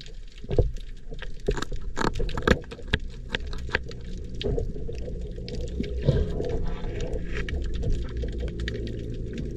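Scissors snipping the spines off a lionfish underwater, heard as a run of sharp, irregular clicks and crunches over the low rumble of the sea.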